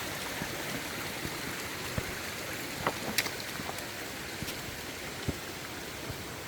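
Mountain valley stream running steadily, with a few faint ticks scattered through it.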